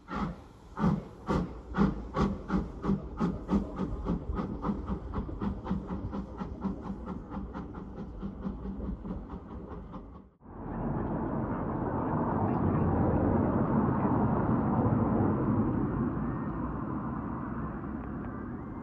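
Steam tank locomotive pulling away: sharp exhaust chuffs, at first about two a second and quickening to about four a second while fading. After a sudden cut about ten seconds in, a steady rushing noise swells and slowly fades, a Class 385 electric multiple unit passing on the main line.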